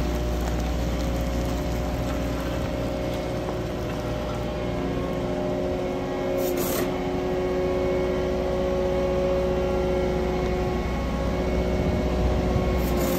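Diesel engine of a CAT 906 compact wheel loader running steadily while it pushes a laser-controlled grading box through gravel.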